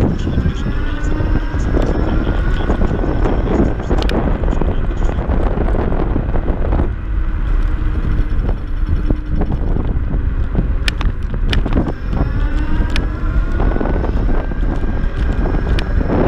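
Kaabo Mantis Pro dual-motor electric scooter riding at speed: its hub motors whine and rise in pitch as it accelerates, near the start and again towards the end, under heavy wind buffeting on the microphone. A few sharp knocks come through from the ride.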